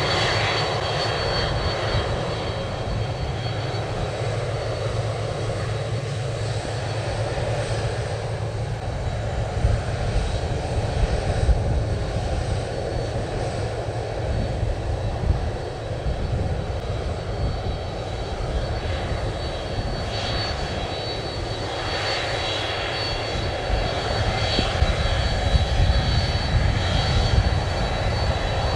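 Jet engines of a Boeing 767-300ER (General Electric CF6-80C2 turbofans) running as the airliner taxis past: a steady jet rumble with a thin high whine on top, swelling a little louder near the end.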